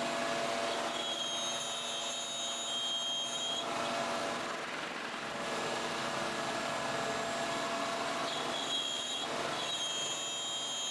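Table-mounted router running with its dust-collection vacuum while a slot is routed through an MDF fence piece. A steady machine noise, with a high whine that comes in about a second in, fades out before the middle and returns near the end as the cut goes on.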